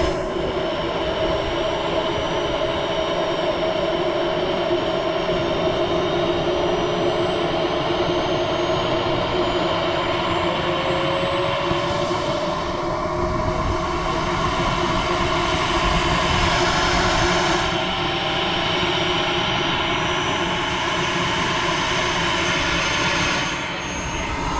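Model jet turbine engine running steadily: a loud rushing noise with a layered whine whose pitch drifts slowly upward.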